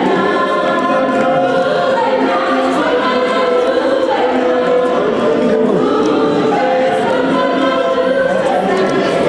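A group of voices singing together in harmony without instruments, steady throughout.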